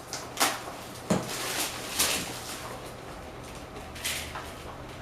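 A few sharp knocks and clatters, the loudest about a second in, from plastic tubing and fittings being handled and moved about.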